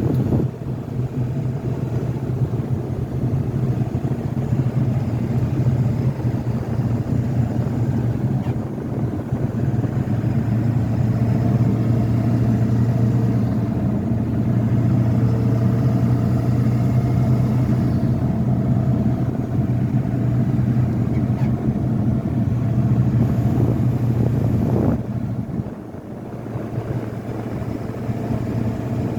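Ford 7.3 L Power Stroke turbodiesel V8 of a 2000 F-350 running as the truck is driven, a steady low drone with road noise. The level drops briefly a little before the end.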